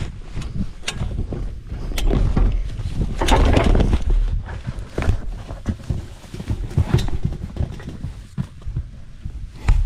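Grass rustling and crackling under a person's hands and knees as they crawl, with camouflage clothing rubbing against a body-worn camera and irregular soft knocks of hands on the ground. There is a denser burst of rustling about three seconds in.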